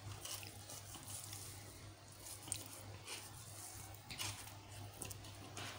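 Faint soft squishing and scraping of a plastic spatula pushing mashed boiled potato out of one plastic bowl into another, with a few light clicks, over a steady low hum.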